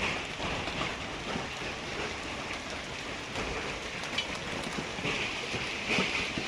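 Heavy hail falling: a dense, steady patter of hailstones striking, with a few sharper single hits.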